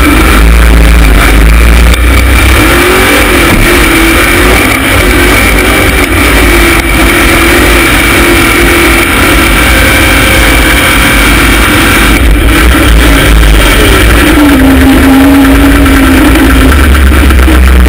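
LS V8 engine of a rock bouncer buggy running hard under load up a hill climb, very loud from inside the open cage, its revs wavering up and down and dipping about fourteen seconds in.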